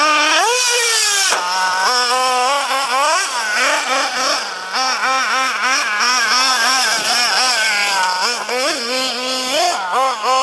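Nitro engine of an RC truggy revving up and down over and over as the throttle is worked, its whine constantly rising and falling, with one long climb to a high pitch in the first second that cuts off sharply. The owner says the engine was running lean from a fuel-pressure problem in the fuel tank and lines.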